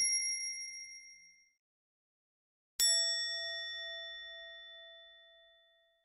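A bell-like ding sound effect: one clear strike about three seconds in that rings and slowly dies away over nearly three seconds. At the start, the ringing tail of an earlier metallic hit fades out within about a second and a half.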